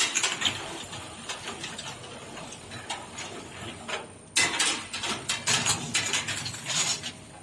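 Ultrasonic bottle washing machine running: a rattling mechanical clatter with many sharp clicks. It dips briefly about four seconds in, then starts again abruptly and louder.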